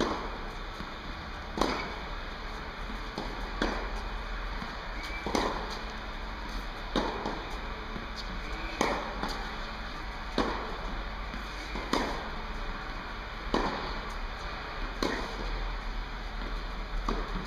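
Tennis racket striking the ball about every second and a half, a regular run of sharp pocks, about ten in all, with fainter knocks between them, echoing in an indoor tennis hall.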